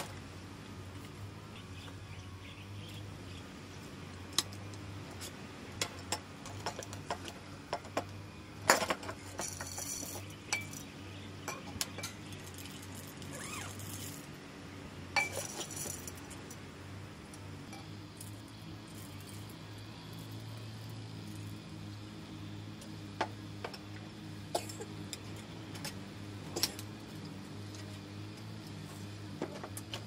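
Dishes, pots and utensils clinking and knocking in scattered sharp clinks, over a steady low hum.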